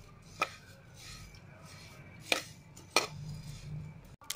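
Whole coriander, cumin and fennel seeds dry-roasting in a hot pan and being stirred with a spatula: a faint scraping and rustling of seeds against the pan, with three sharp clicks. The crackling shows the seeds are nearly roasted.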